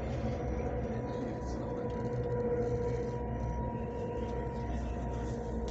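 Steady rumble inside a high-speed bullet train carriage running at speed, with a steady mid-pitched hum over it.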